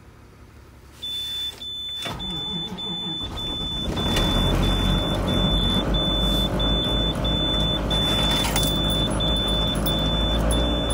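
School bus diesel engine cold-started: it cranks, catches about three to four seconds in and settles into a steady idle. Throughout, a high-pitched dashboard warning buzzer beeps about twice a second.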